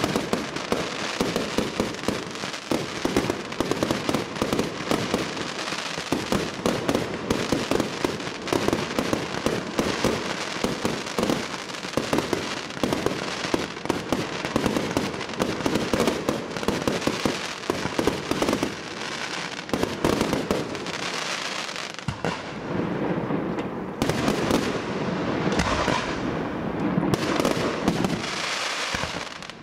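Fireworks going off in a dense, continuous run of rapid cracks and pops. In the last several seconds it thins into separate bursts with short gaps between them.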